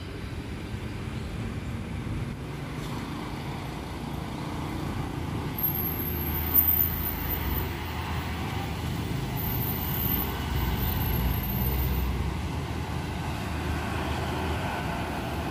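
Intercity bus engine running as the bus pulls through a road junction, over a steady rumble of road traffic; it grows somewhat louder in the middle, with one short thump about six and a half seconds in.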